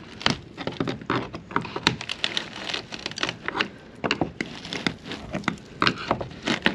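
An old window frame being worked loose from a wooden boat's hull: a run of irregular small cracks and clicks as it breaks free of the old wood.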